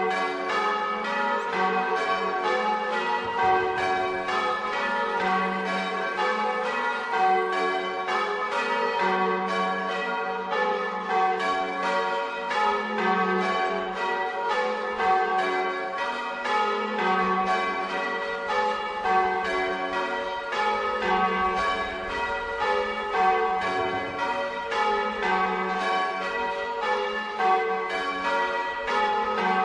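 Church bells rung in the Bolognese style, several bells struck in quick succession, their overlapping tones ringing on without a break.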